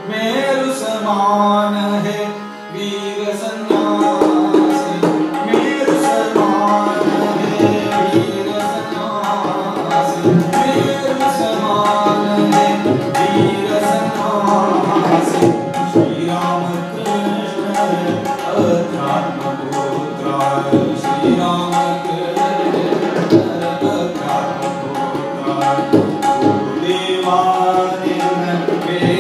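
Tabla playing a fast rhythmic accompaniment to a harmonium's sustained chords and a male voice singing a Hindustani-style bhajan. The tabla strokes come in about three and a half seconds in.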